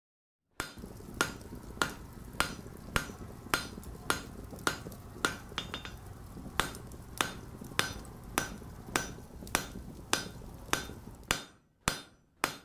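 A hammer striking an anvil in a steady rhythm, a little under two ringing blows a second, with one short pause midway. A low steady rumble runs under the blows and stops near the end while the hammering goes on.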